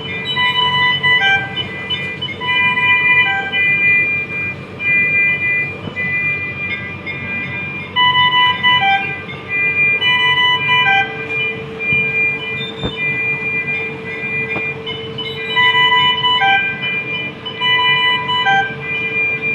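Electronic alarm tones from NICU medical equipment: several steady beeping tones at different pitches overlapping in a pattern that repeats about every seven to eight seconds, over a steady hum.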